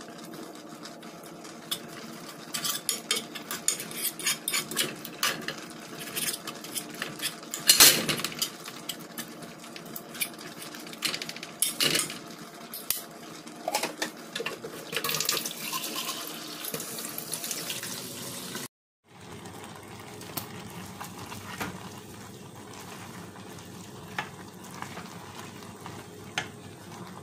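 A utensil clinking, knocking and scraping against a cooking pot as canned mackerel in sauce is stirred and broken up, with many sharp clicks and the loudest knock about eight seconds in. After a sudden cut about two-thirds through there is a steadier hiss with a few light taps as boiled macaroni is stirred.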